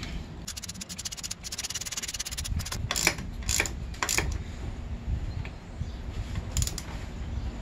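Kick-start lever of a Honda CRF250R worked by hand: a quick run of fine ratchet-like clicks, then a few separate sharp metal clicks as the lever is swung and folded.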